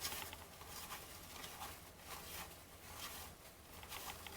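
Baseball trading cards being flipped through by hand: faint, scattered rustles and short scrapes of card stock sliding over card stock.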